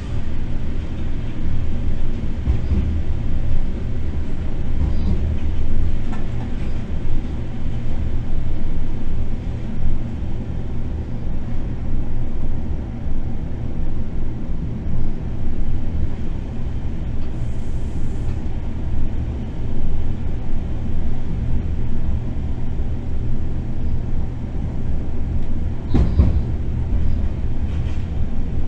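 Electric freight locomotive running, heard from inside its driver's cab: a steady low rumble of the running gear on the rails, with a sharp knock near the end.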